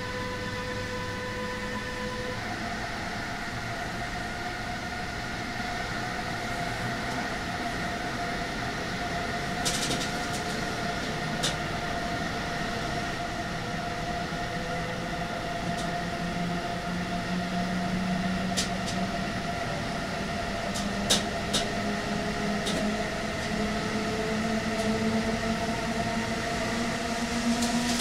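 Electric whine of a DB Class 101 locomotive's Adtranz/ABB MICAS-S GTO traction inverter and motors, heard from the neighbouring coach as the train pulls away and gathers speed. Steady inverter tones change pitch about two seconds in, then low tones slowly rise as speed builds. A few sharp clicks come from the running gear.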